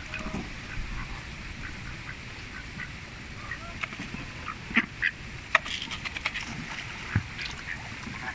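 White domestic duck feeding from a plastic bowl of grain: scattered small clicks of its bill in the feed and against the bowl, with a few sharper knocks in the second half.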